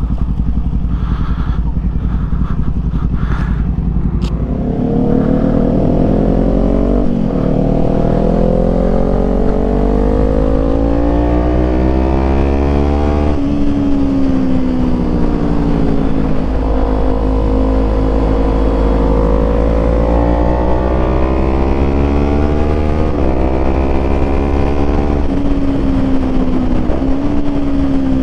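Small parallel-twin sport motorcycle engine pulling hard. Its revs climb about four seconds in, then rise and fall over and over as the rider shifts gears and rolls on and off the throttle through bends.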